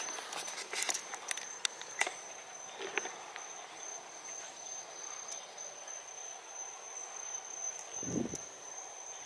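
A steady, high-pitched insect trill, with scattered sharp clicks and taps in the first two seconds and a low thump near the end.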